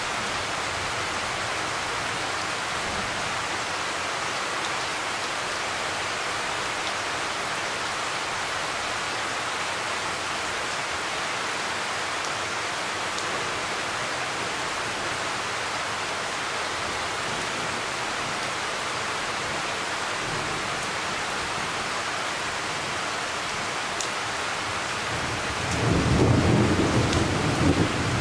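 Steady heavy rain falling. About two seconds before the end a low roll of thunder rumbles in and grows louder.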